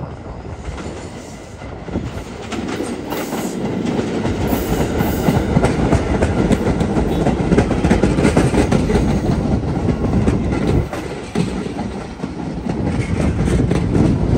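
New York City Transit R211S subway cars rolling into the station alongside the platform, steel wheels clicking rhythmically over rail joints under a rumbling run. The sound grows louder over the first few seconds as the cars come close, dips briefly near two-thirds of the way through, then rises again.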